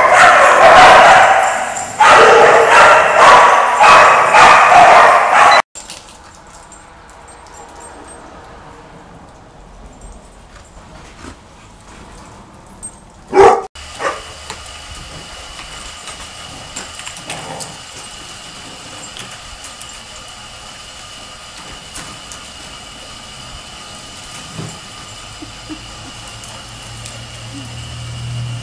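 A pack of dogs barking and yipping over one another, loud and continuous, cutting off suddenly about six seconds in. After that the sound is much quieter, with a single short bark about halfway through.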